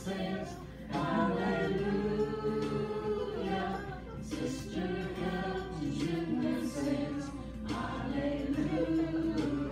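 A group of voices singing a song together, in sung phrases of a few seconds with long held notes and short breaths between them.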